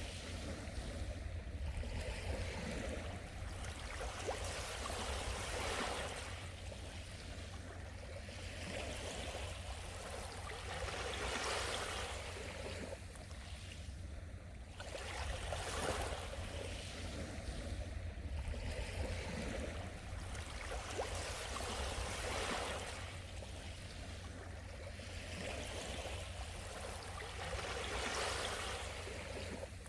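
Sea waves washing in, the rush swelling and falling back every four to six seconds.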